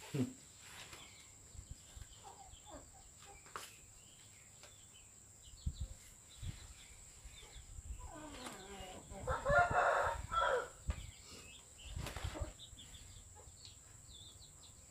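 A rooster crows once, about nine seconds in, a pitched call of roughly two seconds that is the loudest sound here. A few soft, dull thumps come before and after it.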